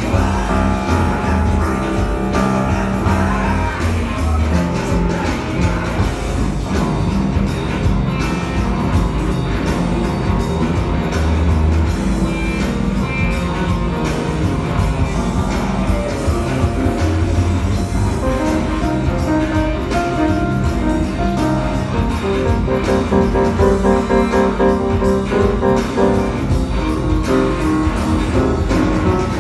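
Upright piano being played continuously, chords and melody over a full bass line.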